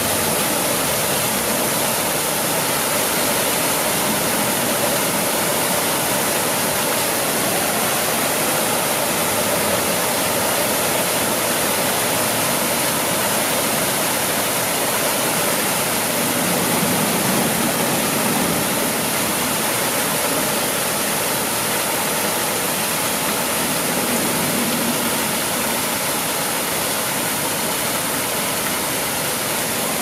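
Water from a man-made rock-wall waterfall splashing down over large stones, a steady rushing sound. The flow is thinning as the waterfall slows.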